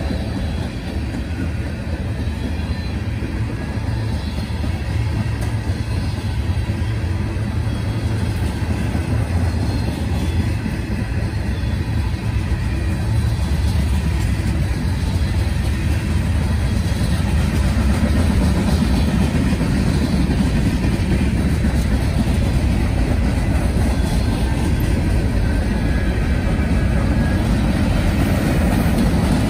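Freight train rolling past, a continuous low rumble of wheels on rail that slowly grows louder.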